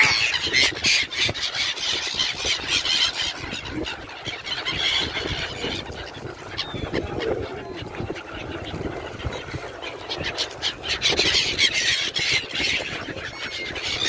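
A large flock of gulls calling, many shrill overlapping cries as they crowd around food thrown from a boat. The calling is thickest in the first few seconds and again near the end, thinner in the middle.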